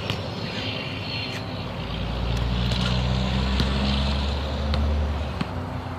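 A motor vehicle passing on a nearby road: its low engine hum swells about two seconds in and fades away near the end. A few sharp knocks of a basketball bouncing on asphalt fall along the way.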